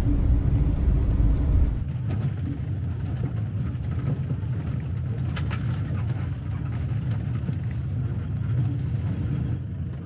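Motorhome driving: a steady low rumble of engine and road noise, which drops abruptly about two seconds in, with a brief click a little after halfway.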